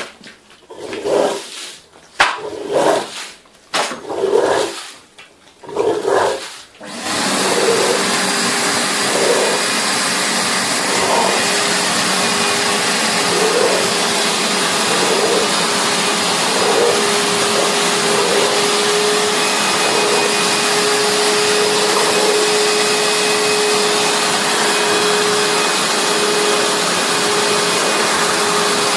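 A carpet-cleaning vacuum comes on about seven seconds in and runs steadily, with a steady whine in its noise, as its wand draws shampoo foam off a wool rug. Before it starts there are short separate sounds about a second apart.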